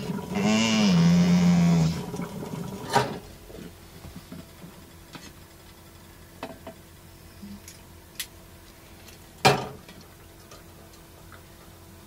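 A dog's drawn-out, howling whine lasts about two seconds, its pitch rising and then holding. Then come scattered light clicks and clinks of coffee-making at a counter, with one sharp knock about nine and a half seconds in, the loudest sound.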